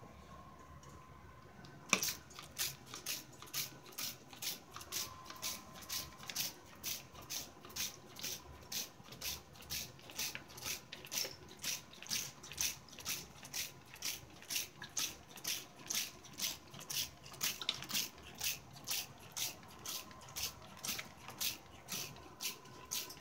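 Hand-held trigger spray bottle squirting water over and over at a steady pace, about two squirts a second, starting about two seconds in.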